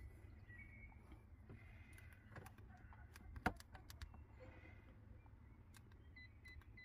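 Near silence with faint handling clicks, one sharper click about three and a half seconds in: a Mercedes-Benz W221 key remote being handled and its buttons pressed for frequency detection. Faint short beeps repeat near the end.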